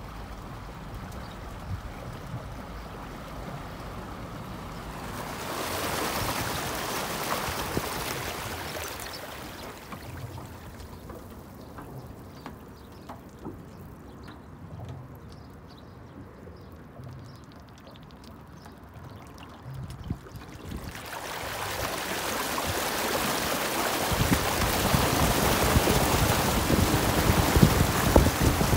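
Flood water washing around a small electric van as it wades through, with no engine note. Through the middle the water only trickles and laps softly around the front wheel. In the last several seconds the bow wave rushes and splashes along the body, growing steadily louder.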